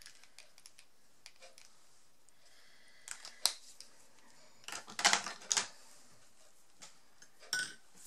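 Light clicks and rustles of craft supplies being handled: a paper tissue moved about and plastic marker pens set down and shifted on a cutting mat. There is a sharp click about three and a half seconds in and a busier cluster of clicks about five seconds in.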